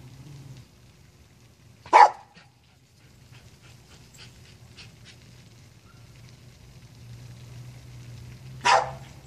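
A dog barks twice, once about two seconds in and once near the end, each a single short sharp bark. A steady low hum runs underneath.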